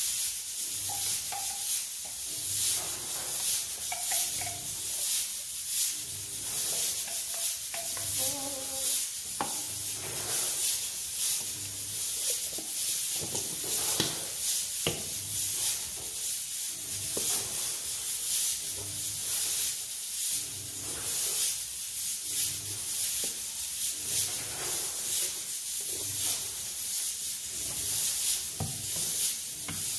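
Metal spoon stirring and scraping around a plastic bowl, mixing a thick mayonnaise sauce, in repeated short strokes over a steady high hiss.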